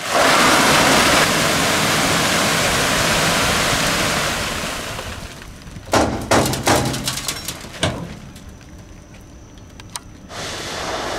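Bulk suction material pouring out of a VacTrailer S4 vacuum unit's collection container into a 1 cubic metre big bag: a sudden loud rush that starts at once and fades after about five seconds. A run of sharp knocks and rattles follows about six to eight seconds in.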